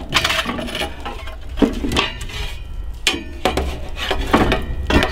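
Metal fire shovel scraping and clinking on the stone floor of a wood-fired pizza oven as it moves embers and wood pieces, with several sharp knocks at irregular intervals.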